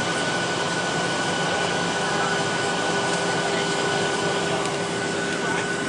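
Steady in-flight cabin noise of a Boeing 737-900ER heard at a window seat beside the wing: the constant rush of air and the drone of its CFM56-7B turbofan engines, with a thin steady whine and a lower hum held over it.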